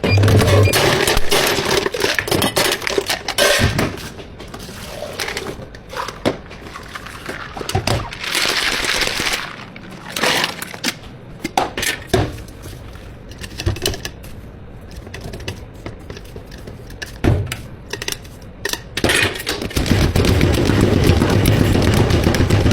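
Drink-making work at a milk tea counter: scattered knocks and clatter of cups and utensils, with short rushing bursts. A louder steady machine-like sound with a low hum is there right at the start and comes back about twenty seconds in.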